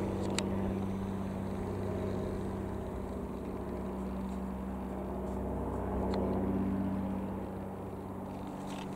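Britten-Norman BN-2B-26 Islander's twin piston engines and propellers droning steadily as the aircraft flies overhead, with a strong low hum. The drone swells slightly about six to seven seconds in, then eases.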